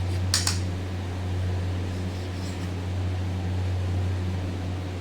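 A steady low mechanical hum, with one short scrape about half a second in.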